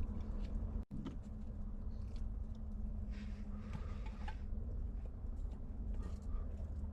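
Quiet eating at a hotpot: soft chewing and a few small clicks of utensils, over a steady low hum.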